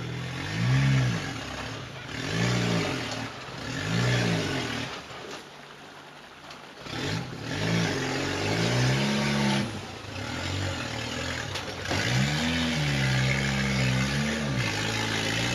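Rock-crawler buggy's engine revving in short bursts as it climbs over boulders, the pitch rising and falling about six times. There is a quieter lull about six seconds in, then longer, held revs near the end.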